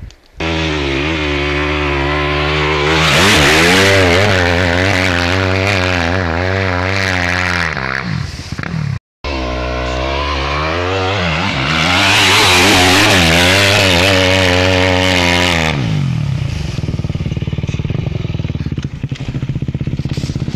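Yamaha WR250 dirt bike engine revving hard and easing off again and again as it climbs a loose sandy hill, the pitch rising and falling. The sound cuts out for a moment about nine seconds in, then the revving resumes, and after about sixteen seconds it settles into a steadier, lower pulsing run.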